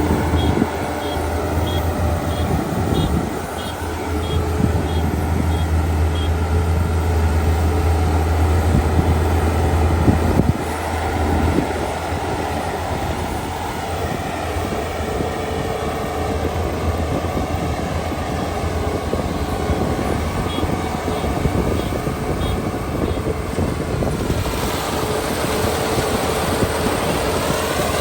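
Kubota ER572 five-row, 72-horsepower combine harvester running while it harvests: steady diesel engine and machinery noise with a low hum. Faint rapid high pips sound in the first few seconds and again about twenty seconds in.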